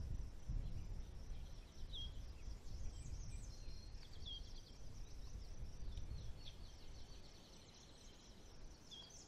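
Faint outdoor ambience: birds chirping, with a short call repeating about every two seconds and higher twittering, over a low rumble. It fades out toward the end.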